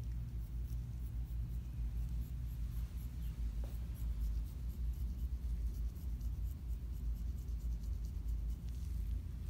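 Dermaplaning scalpel blade scraping across facial skin in many short, quick strokes, shaving off dead skin cells and fine hair, over a steady low hum.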